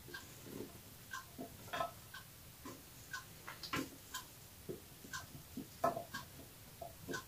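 Spatula scraping and tapping against a stainless steel mixing bowl as chunks of potato and vegetables slide into a glass baking dish: light, irregular clicks and taps, some with a brief metallic ring.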